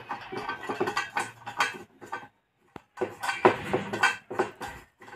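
Hard parts of an electrical board knocking and rattling as they are handled and set in place, a string of irregular clicks and knocks with a short pause about two seconds in.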